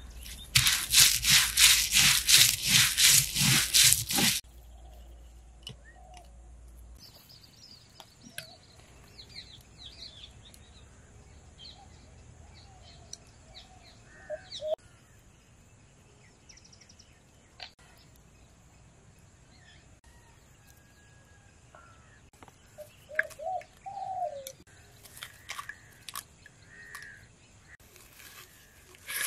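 Stone roller grinding spices on a flat grinding stone: rapid rhythmic scraping strokes, about three a second, for roughly four seconds. Then birds chirping and calling, with light taps and rustling near the end.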